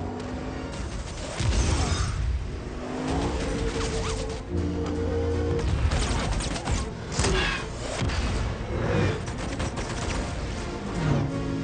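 Film soundtrack mix: a dramatic score with held chords under battle sound effects, with explosions and crashes cutting in several times.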